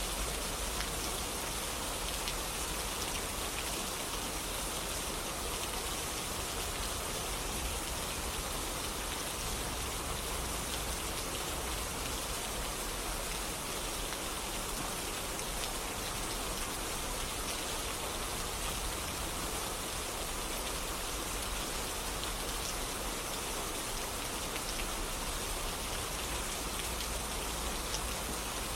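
Steady rainfall, drops pattering on a surface with a dense, even hiss and no let-up.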